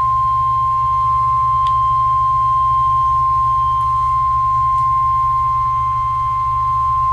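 A single steady alert tone of about 1 kHz, the NOAA Weather Radio warning alarm tone, holding at one pitch over a low steady hum from the radio reception.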